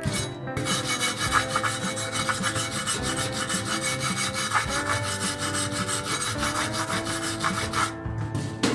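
Wire brush scrubbing slag off a fresh stick-weld bead on a steel plate, in quick back-and-forth strokes. The scratching starts about half a second in and stops shortly before the end.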